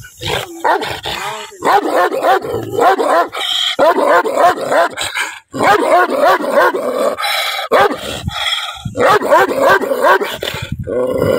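Large black dog barking angrily: runs of rapid barks, several a second, broken by short pauses.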